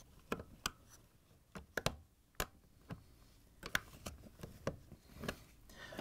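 Scattered small clicks and scrapes at irregular intervals as a small flathead screwdriver pries at and bends a crimped-on, non-reusable hose clamp on a dishwasher circulation pump's hose to loosen it.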